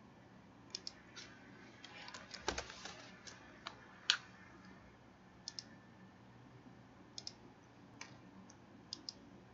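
Computer keyboard typing and mouse clicks: a quick run of keystrokes about two to three seconds in, and short clicks, several in close pairs, scattered through the rest.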